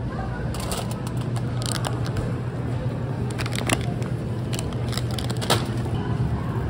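Crinkly plastic snack bag rustling and crackling in a run of sharp clicks as it is handled, over a steady low rumble.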